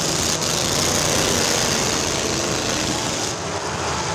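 Demolition derby cars' engines running together, a steady, dense engine noise.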